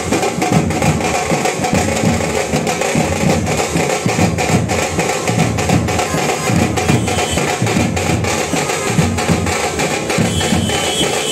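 Music with busy, continuous drumming: many quick drum strokes over a dense, loud background.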